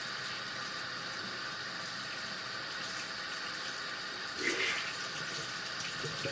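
Tap water running steadily into a sink as a makeup sponge is rinsed under it, with a brief louder sound about four and a half seconds in.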